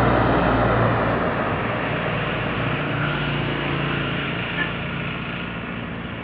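Medium-size tour bus driving past, its engine and tyre noise loudest at the start and fading steadily as it pulls away.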